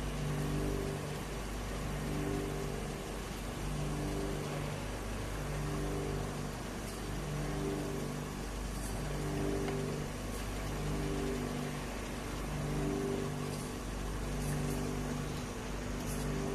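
Hot oil in an electric batch fryer bubbling and sizzling around a load of sweet potato chips, a steady hiss, under a low mechanical drone that pulses on and off about once a second. A few faint clicks come through near the middle and end.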